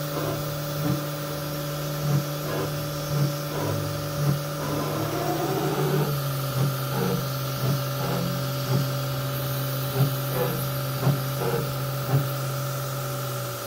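CNC router spindle turning a 6 mm two-flute spot drill at 5000 rpm, spot-drilling 6061-T6 aluminium: a steady spindle hum with short cutting sounds recurring roughly every half second as the drill plunges into the plate. The hum drops slightly in pitch about halfway through.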